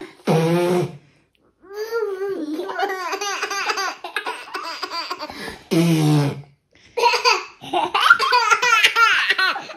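Young children laughing and babbling in high-pitched bursts, with a few short, lower adult voice sounds in between.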